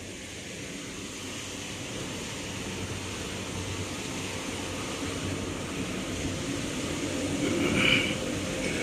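Steady machinery noise in a heavy-industry workshop, slowly growing louder, with a brief higher-pitched rise near the end.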